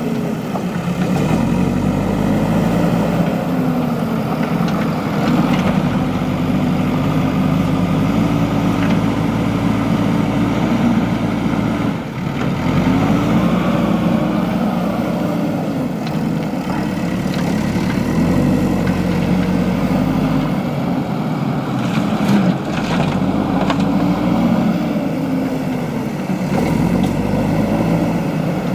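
Diesel engine of a JCB 3DX backhoe loader running, its revs rising and falling again and again as it works. A few sharp knocks come about two-thirds of the way in.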